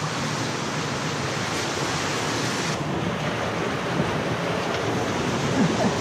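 A steady rushing noise, about as loud as the nearby speech, that changes slightly in tone about three seconds in.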